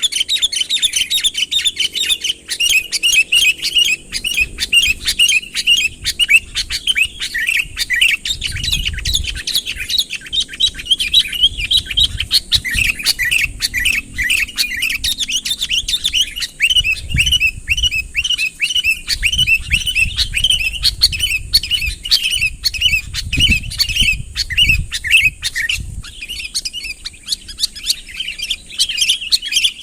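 Sooty-headed bulbul calling vigorously in rapid, unbroken chirping: the territorial call used to lure rival bulbuls in close.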